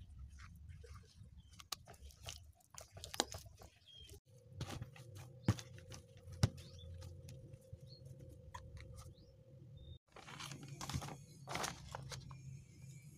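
Hands kneading soft, sticky potato donut dough: faint, irregular squishing and little sticky clicks, over a low steady background hum.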